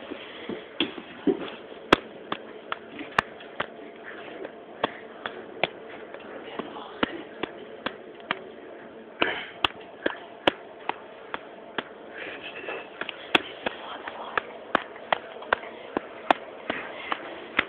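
Handling noise from a camera covered by cloth: irregular sharp clicks and knocks, one to three a second, over a steady rustle, with faint voices in the background.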